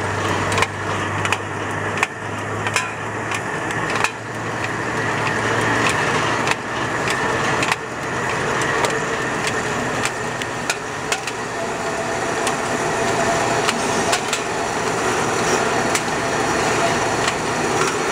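An 18-head isobaric can filler and seaming machine running, with a steady mechanical din and irregular sharp metallic clicks and clanks as aluminium cans pass through the star wheels. A low hum stops about a third of the way in, and a faint steady whine comes in past the middle.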